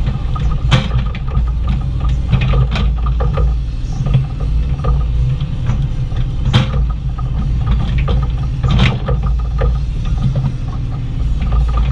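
Bobcat E35i compact excavator running steadily under digging load, its engine and hydraulics working the boom and bucket. Scattered clanks and knocks run through it as the bucket works the ground, the sharpest about a second in, past six seconds, and near nine seconds.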